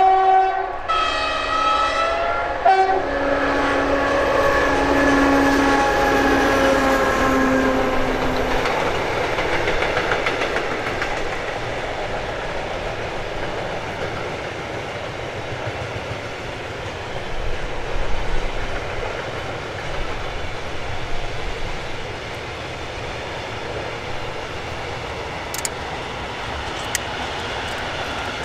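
A Ludmilla diesel locomotive (ex-DR class 132) sounds its horn in two blasts near the start, and its engine drone passes with its pitch sinking as it goes by. It is followed by a long freight train of wagons rolling past with wheel clatter over the rail joints, slowly fading.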